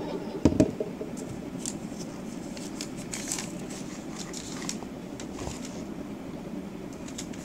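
Handling noise: two sharp knocks about half a second in, then faint scattered clicks and rustling as a phone is moved about close to the microphone, over a steady hiss.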